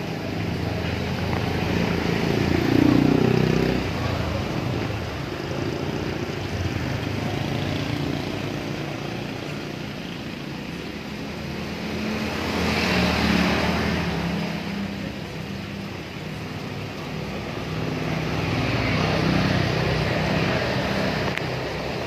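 Road vehicle engines passing by, the noise swelling and fading three times, loudest about three seconds in.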